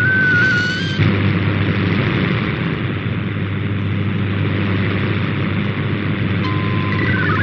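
Shortwave radio reception of an MFSK digital text-and-image broadcast. A stepping data tone stops about a second in, leaving static and a buzzing hum of local interference. Near the end a steady tone sounds, then warbling data tones start again.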